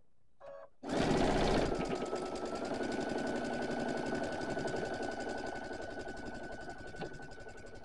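Electronic sewing machine stitching a straight seam: the motor starts about a second in, loudest at first, then runs at a steady speed with a rapid stitching patter and a high motor whine.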